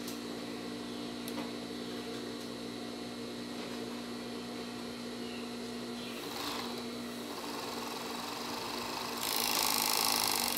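Industrial sewing machine with its motor humming steadily while fabric is guided under the presser foot, then a short louder run of stitching about nine seconds in.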